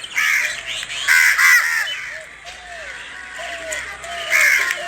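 Birds calling: loud calls just after the start, two close together about a second in, and one more near the end, with softer chirps in between.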